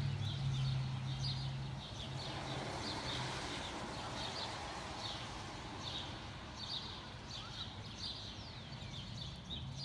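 Songbirds chirping, many short high chirps repeating throughout. A low steady hum runs underneath for the first few seconds, then fades.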